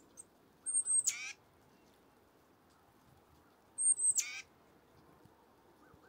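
Tufted titmouse calling twice from the tree, about three seconds apart. Each call is a thin, high note followed by a harsh, buzzy scold.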